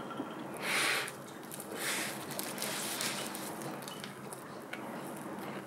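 A person chewing a huge mouthful of lettuce-and-perilla wrap with spicy pork, with small wet squishing sounds and two loud breaths through the nose, about one and two seconds in.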